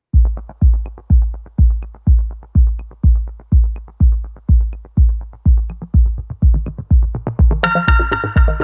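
Electronic background music: a steady kick drum about two beats a second, joined near the end by a bright synthesizer chord.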